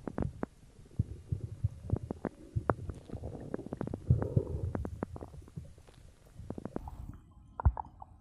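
Human stomach gurgling after drinking cola: a quick, irregular run of small pops and clicks over low, bubbly rumbles, with one louder pop near the end.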